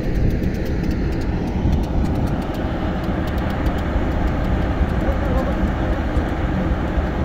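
Diesel rail crane running as it hoists a railway wheelset: a steady low rumble, with rapid light ticking that fades out about five seconds in.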